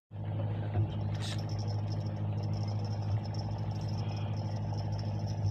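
Steady engine-like drone with an even low hum, with a faint steady high whine above it and a brief hiss about a second in.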